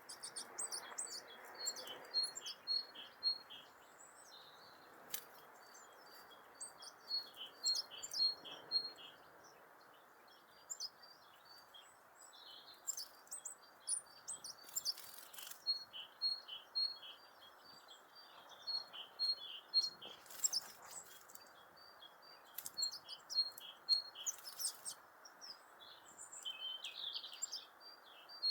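Garden tits singing and calling: series of a high and a lower note repeated in quick succession, broken by a few brief rustling bursts.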